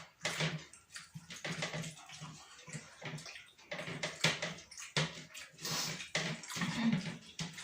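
Close-up eating sounds of chicken biryani: irregular wet chewing and lip smacking, several times a second.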